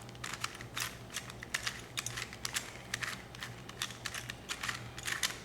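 Rubik's Cube being turned fast by hand, its plastic layers clicking in quick, irregular runs of several clicks a second. These are the final turns that line up the last corner pieces and finish the solve.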